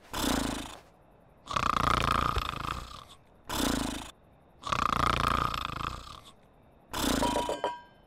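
Exaggerated cartoon snoring from a big sleeping sheep: a long rasping snore followed by a shorter, lower one, the cycle repeating about every three seconds. A thin whistle-like tone rides on the last short one.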